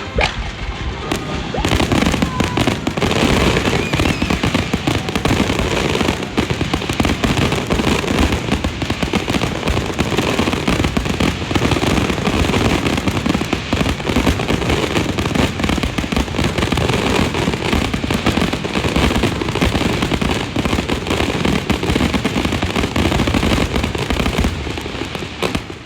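Fireworks display going off in a rapid, nearly continuous barrage of bangs and crackling, easing off at the very end.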